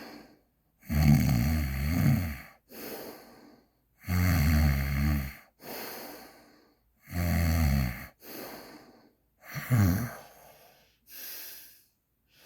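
A man breathing deliberately with his head tilted down: four loud, rough, snore-like breaths, each followed by a quieter breath. The snoring sound comes from the airway being narrowed by the lowered head.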